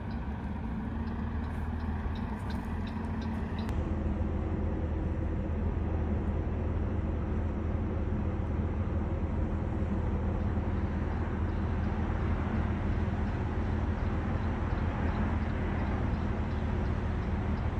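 A large engine idling: a steady low drone with a hum and its overtones, getting a little louder after the first few seconds.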